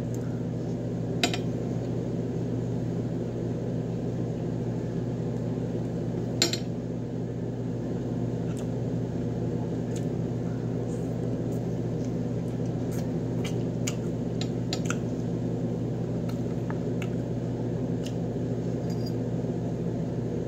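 A steady low hum under scattered clicks and taps of a metal spoon and fork against a plate while someone eats. The sharpest taps come about a second in and about six seconds in, with a run of small ticks through the middle and later part.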